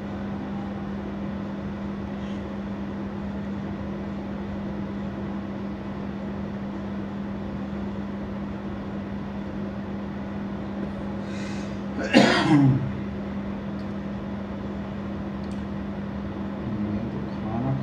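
A steady low room hum with a constant tone, broken about twelve seconds in by one short, loud cough from a person close by.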